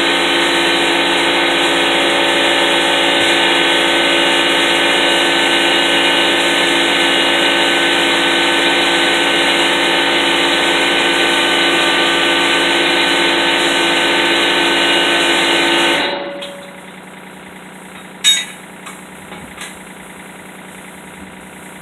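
A machine drones loudly and steadily, then shuts off and winds down about sixteen seconds in. After it stops, one sharp clank and a few light knocks are heard.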